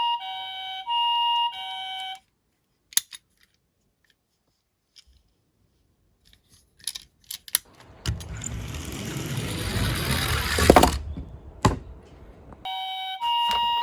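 Toy ambulance's electronic two-tone siren alternating high and low notes, cutting off about two seconds in. After a few small clicks, a toy car rolls down a slope with a rumble that grows louder and ends in a clack, and the two-tone siren starts again near the end.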